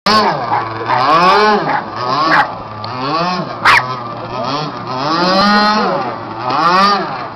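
Radio-controlled model speedboat's motor revving up and down again and again as the throttle is worked, its pitch rising and falling about once a second. A sharp click cuts in a little past halfway.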